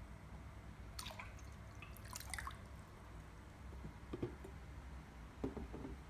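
Water from a mini pump's outlet tube running and dripping into a hand-held bottle as it fills. Splashy bursts come about a second in and again around two seconds, over a faint steady low hum.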